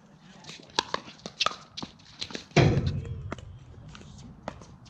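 Pickleball rally: sharp pops of paddles striking the plastic ball, several times, mixed with shoe steps on the hard court. A loud low thump about two and a half seconds in dies away over about a second.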